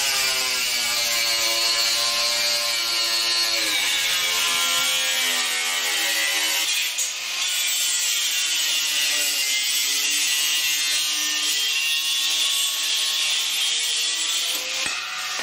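Corded angle grinder with a cut-off wheel cutting through a steel sheet: a steady, loud motor whine over a hiss, its pitch sagging and recovering several times as the wheel bites into the metal.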